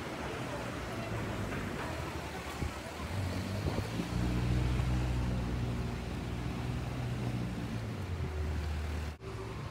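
Street noise with a motor vehicle's engine running close by, a steady low hum that grows louder about four seconds in and holds for several seconds. The sound drops out abruptly near the end.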